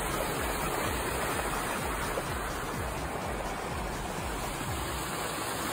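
Steady rushing noise with no distinct sounds in it.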